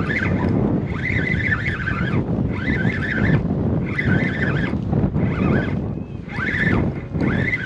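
Wind buffeting the microphone, with a spinning reel cranked in short repeated bursts, about one every second and a half, as a hooked striped bass is fought and reeled in.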